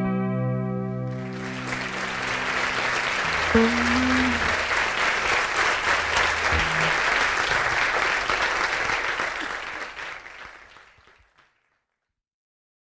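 A theatre audience applauding at the end of a live song, over the last guitar chord ringing out. The applause fades out about ten seconds in, leaving silence.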